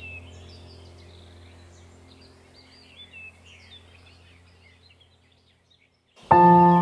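Birds chirping over a soft, low musical drone, both fading out. Near the end a loud bell-like chord strikes and rings on, like a singing bowl in a music track.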